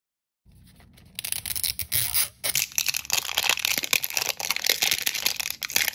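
Crinkling and tearing of the plastic wrapper on an L.O.L. Surprise ball as fingers peel it open: a dense run of crackles starting about a second in, with a brief pause midway.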